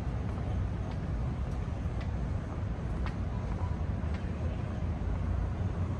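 Street ambience: a steady low traffic rumble, with faint ticks about once a second.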